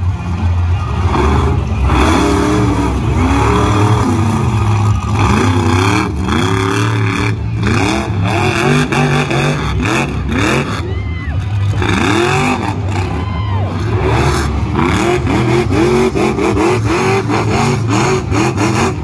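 Monster truck engine revving hard over and over, its pitch climbing and falling many times in quick succession.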